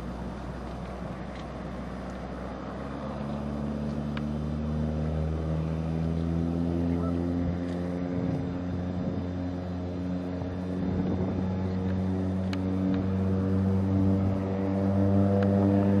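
X-Air ultralight floatplane's engine and propeller running steadily as it step-taxis across the water on one float, the drone growing steadily louder as it comes nearer, over a low hiss of wind.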